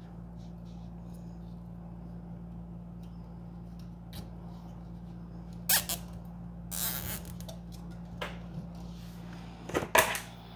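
Zip ties being tightened and trimmed: a sharp snip about six seconds in, a short ratcheting zip just after, and a pair of sharp snips near the end, over a steady low hum.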